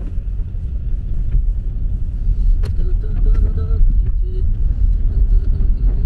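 Steady low rumble of a car driving on a wet road, engine and tyre noise heard from inside the cabin.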